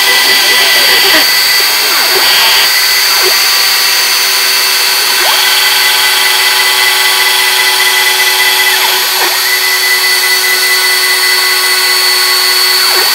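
CNC router spindle spinning a 1/16-inch flat end mill as it cuts 1/8-inch plywood: a loud, steady high-pitched whine with a few brief dips in pitch as the cut goes on.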